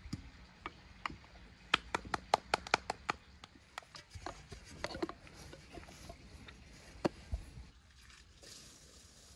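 Hands handling items inside an aluminium pot: a quick run of sharp clicks and taps about two seconds in, a few softer taps after, and one more click with a low thump near the end.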